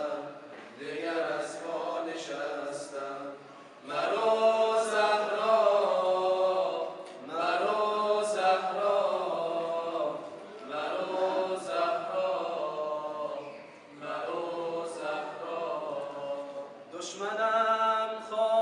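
Group of male voices chanting an Islamic tawashih a cappella, in long held phrases with no instruments. Softer stretches alternate with louder full-voiced passages, the loudest beginning about four seconds in and again near the end.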